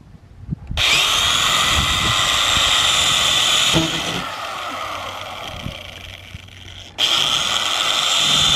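Electric drill whining at high speed as it works at the mounting flange of a van roof vent. It spins up about a second in, drops to a lower, fading speed about four seconds in, and comes back to full speed about seven seconds in.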